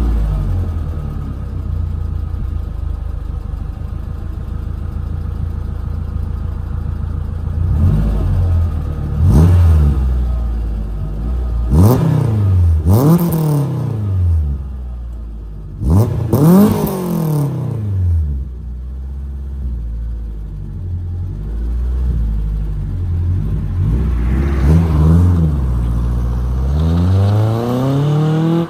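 Car engine idling through a custom straight-through stainless exhaust and revved in several quick blips, each rising sharply in pitch and falling back to idle.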